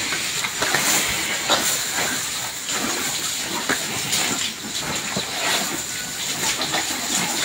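Brahman-cross cattle feeding from a pile of cut grass: rustling and tearing of grass with irregular short crunches over a steady hiss.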